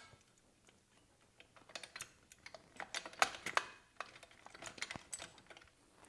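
Light, irregular metal clicks and taps of a stainless steel exhaust pipe section being handled and slid over the joint of the previous pipe section.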